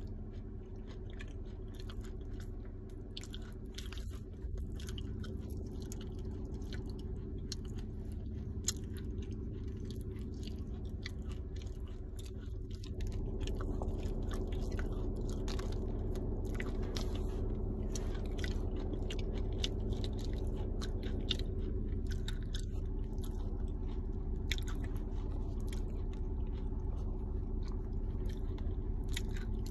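Close-up biting and chewing of a big ball of crunchy clay, with dense sharp crunches throughout. A steady low hum sits underneath and grows louder about halfway through.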